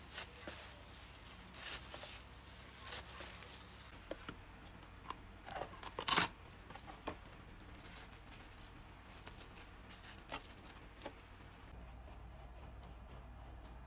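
Thin plastic crinkling and rustling in short bursts as a disposable plastic glove kneads dough and cling film is stretched and wrapped around the dough ball, the loudest crinkle about six seconds in. Quieter after that, with a few faint clicks.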